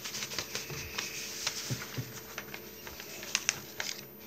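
Paper rustling and crackling with irregular light clicks and taps as coloring-book pages and loose sheets are handled, with a couple of sharper ticks a little past three seconds in.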